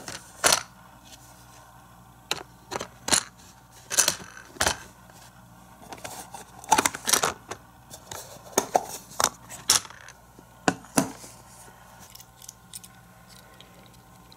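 Hard plastic toy playset parts clicking and knocking as they are handled, including the hinged dunk-tank lids being flipped open. The sharp clicks come irregularly and die away about eleven seconds in.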